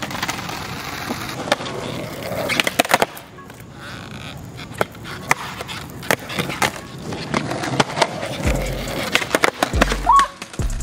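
Skateboard wheels rolling on a concrete path, broken by several sharp wooden clacks of the deck popping and slapping the concrete during failed ollie attempts.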